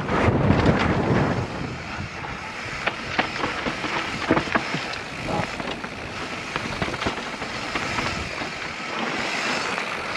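Mountain bike descending a dirt trail at speed: tyres rolling over loose dirt and roots, with the bike's chain and frame rattling in a steady run of clicks and knocks. Wind buffets the helmet microphone with a low rumble in the first second or so.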